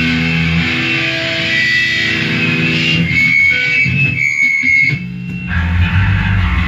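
Live band music with electric guitar to the fore, playing held notes through effects. About five seconds in the level briefly dips, then heavier low bass notes come in.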